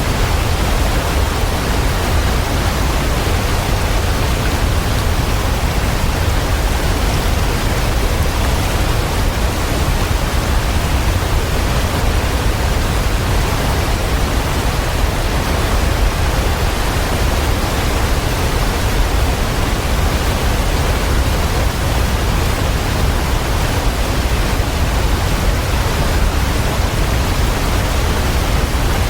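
Waterfall: a steady, unbroken rush of falling water with a deep low rumble under it.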